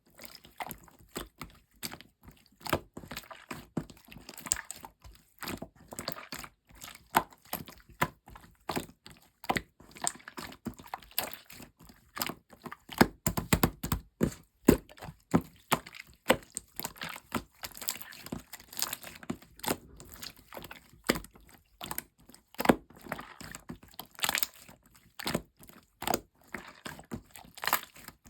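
Clear slime being pressed and squeezed by hand, making irregular sharp clicks and pops, several a second.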